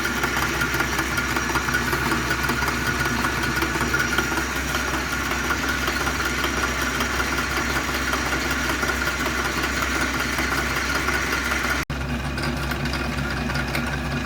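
Old South Bend metal lathe running steadily under power, drilling into a slug held in its chuck, with motor and gear noise and a steady whine. The sound drops out for an instant about twelve seconds in, then carries on.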